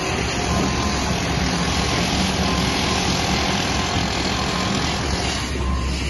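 Steady drone of construction machinery, a heavy engine running at a constant pace, over a wash of street noise.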